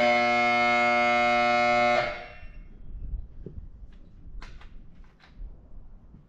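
A loud, steady horn blast lasting about two seconds, then cutting off, followed by a few faint clinks.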